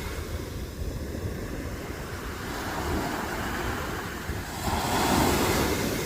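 Sea waves breaking and washing up on a sandy beach, the surf swelling to its loudest about five seconds in. Wind rumbles on the microphone throughout.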